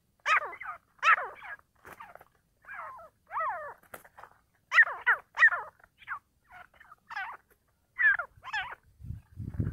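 Grey francolins calling: a long run of short, sharp call notes in uneven clusters, some loud, the territorial challenge exchanged between a caged decoy and a wild bird. A low rumble starts near the end.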